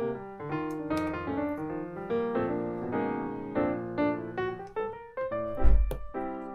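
Background piano music with notes played in a steady flowing run. A short low thump cuts through it near the end.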